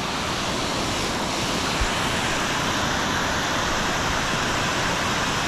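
Steady rush of fast-flowing creek water below a dam, with a brief low bump about two seconds in.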